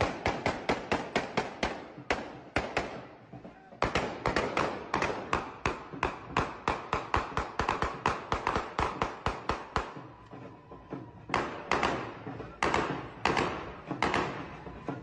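Celebratory gunfire from rifles fired into the air: rapid shots, several a second, in three long runs with short pauses about three and ten seconds in.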